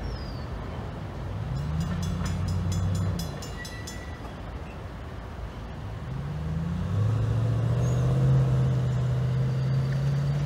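Diesel locomotive engine of a short freight train throttling up. A deep drone rises in pitch and swells about a second in, then eases, and climbs again from about six seconds on, holding loud.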